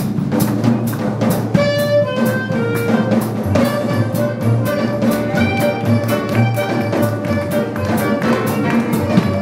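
Small jazz combo: a drum kit keeps a fast, steady beat, and a clarinet comes in with the melody about a second and a half in.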